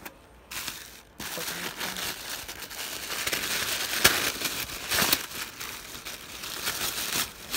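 Tissue paper crinkling and rustling as a wrapped gift is pulled open by hand. It begins about a second in, with two sharper crackles in the middle.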